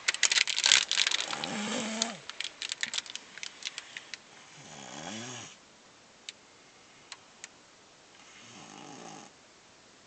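Snoring: a loud, crackly snore with many clicks in the first two seconds, scattered clicks after it, then two quieter drawn-out snores about four seconds apart, the second softer.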